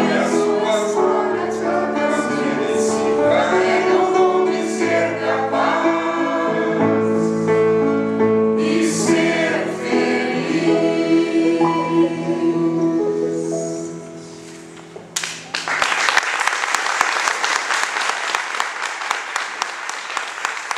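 A small group of men singing together in harmony, holding long notes; the song ends about fourteen seconds in. About a second later audience applause starts suddenly and continues.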